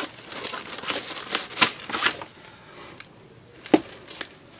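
Rustling and crinkling of an instruction booklet and packaging being handled, with a few sharp clicks or taps, two of them standing out about a second and a half in and later on.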